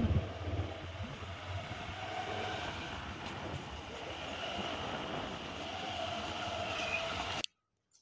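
Steady motorcycle engine and wind noise heard from the pillion seat while riding, cutting off abruptly near the end.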